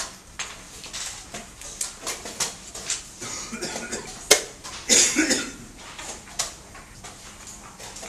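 Wooden chess pieces clicking and knocking on boards, with one sharp knock about four seconds in as a piece is set down, followed by a short noisy burst.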